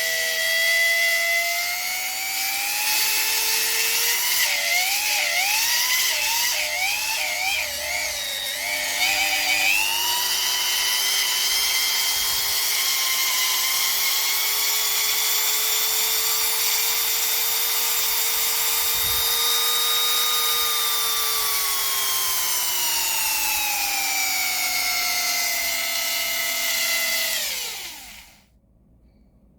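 Corded rotary tool motor whining at high speed. Its pitch wavers up and down for a few seconds, then rises and holds steady. Near the end the pitch falls as the tool is switched off and spins down to a stop.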